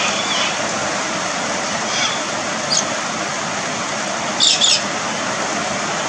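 Steady hiss of rain with galahs giving about five short calls, two of them in quick succession about four and a half seconds in.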